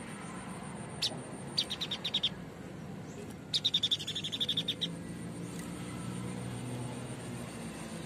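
White-breasted babbler calling in quick rattling runs: one sharp note about a second in, a short fast series of about eight notes, then a louder, longer run of about fifteen rapid notes near the middle.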